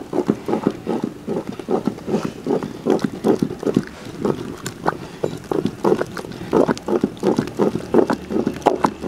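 Wooden ghotna churning thick, nearly finished kheer in a large aluminium pot: a quick, even knocking and sloshing, about three strokes a second. This is the vigorous final stirring that thickens the kheer.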